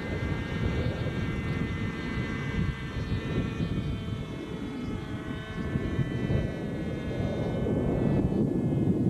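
Radio-controlled NOTAR model helicopter's small engine whining as it flies past and climbs away, the pitch sinking slightly and the whine fading out about three-quarters of the way through. Wind rumbles on the microphone throughout, growing louder near the end.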